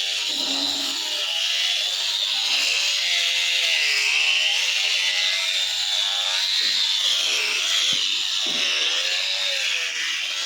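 Handheld electric grinder sanding a wooden window frame, running continuously, its whine sagging and recovering again and again as it is pressed into the wood.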